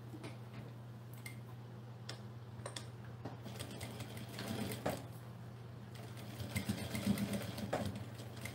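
Industrial sewing machine topstitching through the thick layers of a fabric bag, its motor humming steadily. It stitches in short runs, the longest and loudest run coming near the end.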